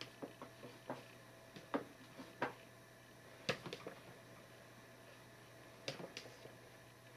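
A cat's paw and claws tapping against a computer monitor's screen: a string of sharp taps at irregular intervals, the loudest about three and a half seconds in.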